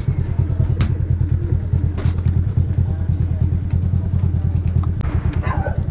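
Motorcycle engine running steadily close by, with a fast even pulse, easing off about five seconds in. A couple of sharp clicks sound over it.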